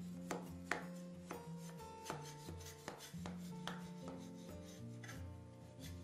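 Knife blade scraping and clicking against the side of an aluminium cake pan as it is run around the edge of a baked pie to loosen it, over soft background music.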